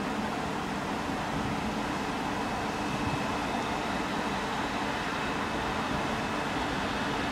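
Steady mechanical drone of trains at a railway station, with a few held tones and no sudden sounds, as a Class 66 diesel freight locomotive approaches in the distance beside a standing electric multiple unit.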